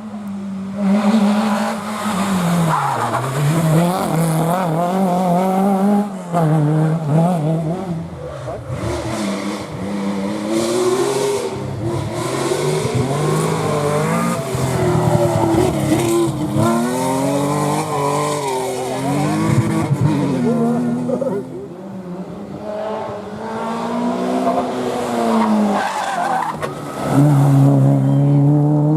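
Historic rally car engines at full attack, revving high and dropping again and again through gear changes and lifts, one car after another.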